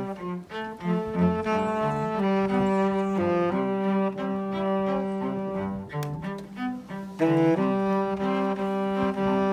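Instrumental music with slow, held notes in several parts that change about once a second.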